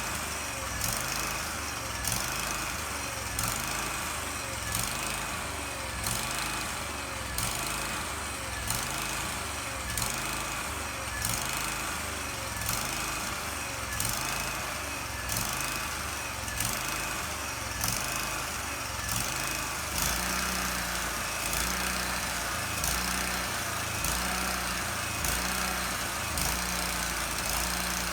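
A sawmill's small engine running steadily, with a regular pulse in the sound.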